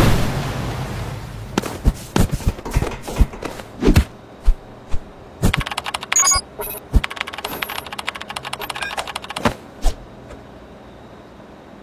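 Animation sound effects: the rumble of a boom dying away, then a run of irregular sharp clicks and taps like typing on a computer keyboard. A brief high electronic tone sounds near the middle.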